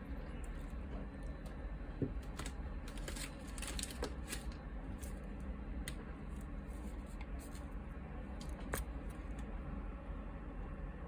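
Irregular small clicks and a few light knocks of kitchen utensils and dishes being handled during food preparation, over a steady low hum.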